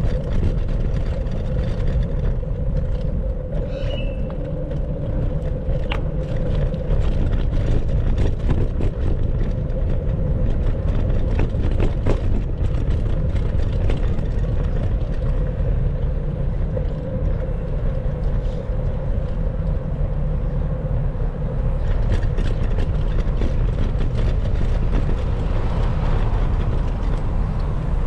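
Wind rushing over the microphone and road rumble while riding a bicycle through city streets, with a steady hum and scattered clicks and rattles.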